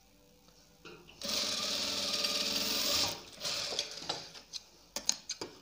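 Electric sewing machine running and stitching a short seam for about two seconds, starting about a second in, finishing the edge of a kurti placket strip. A few light clicks follow.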